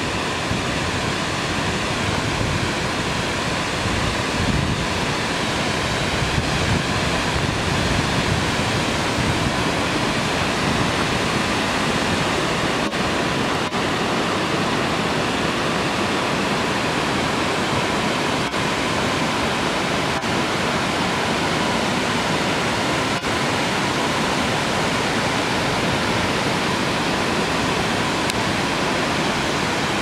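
Tvindefossen, a tall multi-tiered waterfall, pouring steadily: a dense, even rush of falling water with no break or change.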